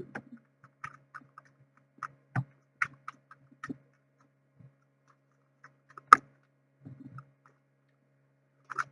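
Tarot cards being handled: scattered light clicks and taps, with one sharper tap about six seconds in, over a faint steady low hum.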